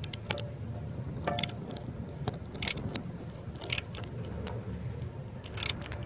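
Ratchet wrench with a 24 mm socket on the plastic bolt head of a hydrostatic transaxle filter, giving several sharp metallic clicks at uneven intervals. The filter is being snugged to a low torque so that its gasket seats.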